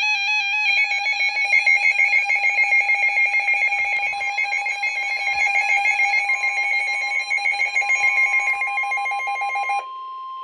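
Emergency Alert System attention signal: a loud, harsh, steady two-tone alarm announcing a severe thunderstorm warning. A single, higher steady tone joins about six seconds in. The two-tone alarm stops shortly before the end, leaving the single tone on its own.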